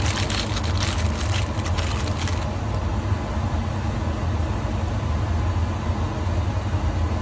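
Steady low machine hum from the hard-drive platter-washing machine dry-cleaning a platter. A hiss with a crackly edge runs through the first two and a half seconds, then stops.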